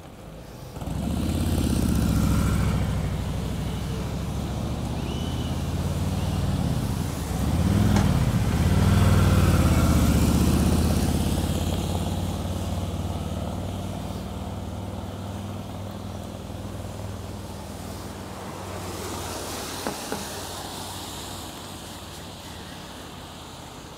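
A vehicle engine running close by, a low pitched drone that starts about a second in and rises and falls in pitch twice, loudest in the middle. It then holds a steady pitch and fades away over the last several seconds.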